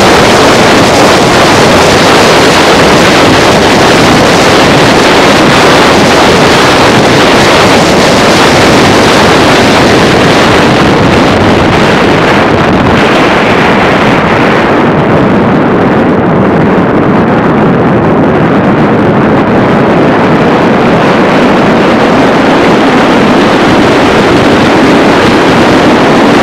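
Loud, steady wind and road noise from a moving car. The upper hiss softens for several seconds in the middle of the stretch, then builds again toward the end.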